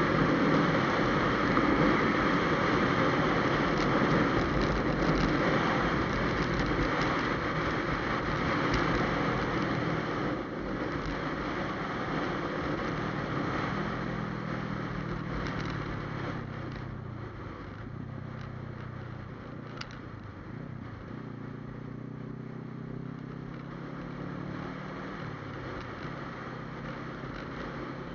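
Motorcycle on the road: heavy wind rush over its engine at first, easing off through the second half as the bike slows. Its engine note then comes through more clearly, dipping and rising in pitch with the throttle.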